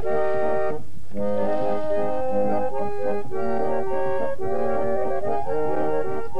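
Instrumental background music: a melody of held notes on an organ-like instrument, with a short break about a second in.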